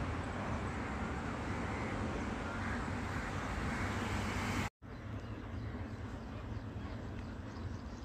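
Steady outdoor background noise, a low traffic-like rumble, with faint bird calls. The sound cuts out completely for an instant a little past halfway, at an edit.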